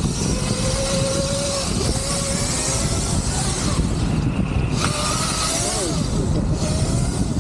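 Riding a 72-volt electric bike: heavy wind rumble on the microphone, with a thin motor whine that rises and falls in pitch as the speed changes.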